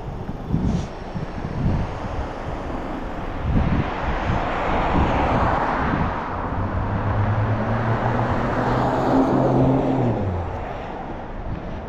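Road traffic passing on a multi-lane street. A vehicle's noise builds and its low engine hum drops in pitch as it goes by, about ten seconds in.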